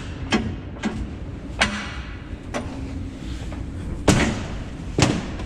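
About six sharp knocks and thumps, unevenly spaced, the loudest two near the end, over a low steady rumble, during work greasing a combine harvester.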